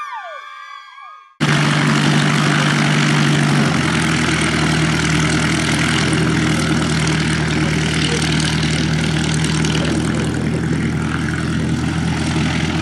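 Radio-controlled model plane's engine running as the plane taxis, a steady buzzing drone that starts abruptly about a second and a half in and settles slightly lower in pitch a couple of seconds later.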